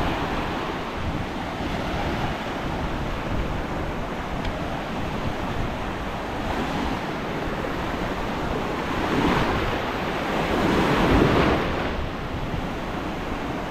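Sea surf washing onto the beach, with wind on the microphone. The wash swells louder twice in the latter part.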